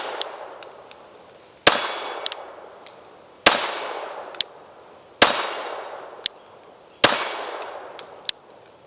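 Glock 43X 9mm pistol being fired at a slow, steady pace, four shots about 1.8 seconds apart. Each shot is followed by a metallic ring that fades out over a second or so, and a couple of small clinks.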